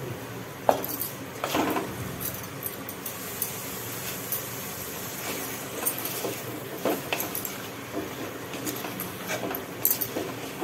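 Marinated mutton tipped from a steel bowl into a clay pot and stirred with a wooden spatula: scattered clinks, knocks and scrapes of bowl and spatula against the pot, over a steady faint hiss.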